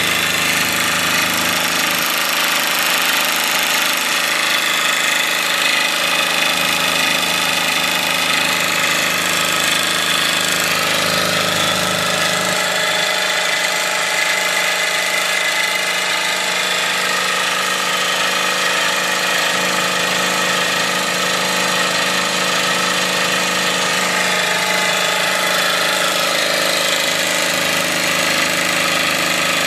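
Wilesco D24 model steam engine running steadily, a fast continuous chuffing and mechanical clatter as it drives a small generator by a belt.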